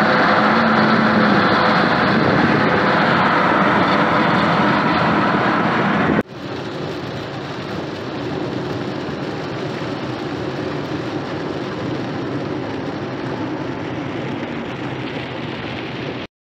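Steady road and wind noise heard from inside a car travelling at highway speed beside a semi-trailer truck. About six seconds in it cuts abruptly to quieter, even road noise of a car driving on a wet highway in the rain, which stops suddenly near the end.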